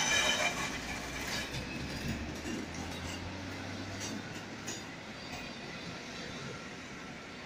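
Intercity passenger coaches rolling past on steel rails, with a steady rolling rumble, a few sharp wheel clicks over the track, and a low hum in the first half. The sound slowly fades as the train moves on.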